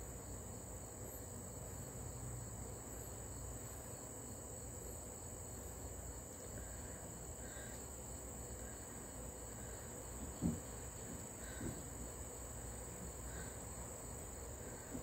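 Steady high-pitched drone of insects, with faint chirps about once a second. Two short, soft low thumps come about two-thirds of the way through.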